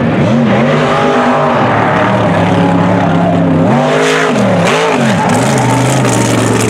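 Mega truck engine running hard through a mud course, its pitch climbing and dropping with the throttle several times. About four seconds in, as the truck jumps, it rises and falls sharply, then holds steady near the end.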